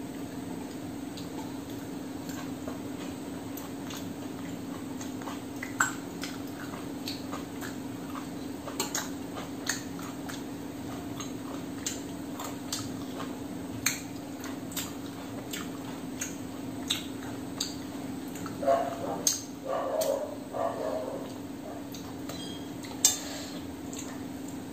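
Someone eating a rice meal by hand from a stainless-steel plate: wet chewing, lip smacks and finger-licking clicks, with fingers scraping and tapping the steel plate. The clicks are scattered, thickening around two-thirds of the way in, over a steady low hum.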